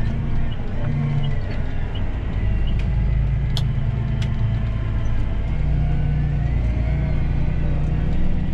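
Tractor engine running steadily while under way, a low rumble whose note shifts slightly, with two sharp clicks about three and a half and four seconds in.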